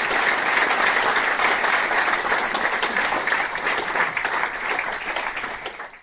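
Audience applauding the end of a talk: steady clapping from many hands that eases a little near the end and then cuts off suddenly.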